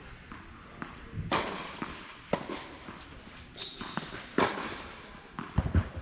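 Tennis rally: a tennis ball struck sharply by rackets about every one to two seconds, with fainter bounce clicks between, and a few dull thumps near the end.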